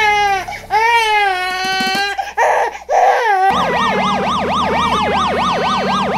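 Dubbed cartoon sound effects: a long falling wailing cry with short sobbing breaths, then, about halfway through, a rapid up-and-down warbling tone about four times a second over a steady low hum.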